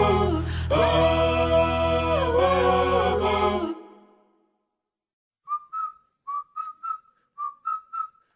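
Background music plays and fades out a little under four seconds in. After a short silence a whistled tune begins: short notes at about two a second, each with a small upward slide.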